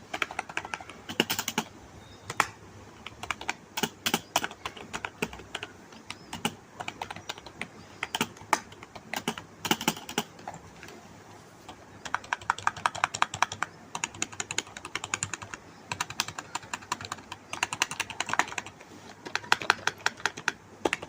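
HP K300 membrane gaming keyboard being typed on. Keys are pressed singly and in short groups at first, then in fast runs of keystrokes, the longest starting about twelve seconds in and again near the end.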